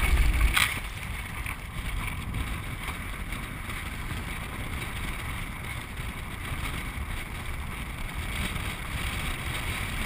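Land yacht under sail across a dry lake bed: steady wind and rolling noise. Heavy low wind buffeting on the microphone eases with a sharp knock about half a second in.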